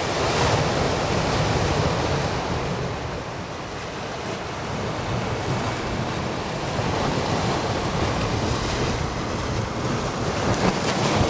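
Ocean surf washing up onto a pebble beach, swelling and easing in waves, with wind buffeting the microphone.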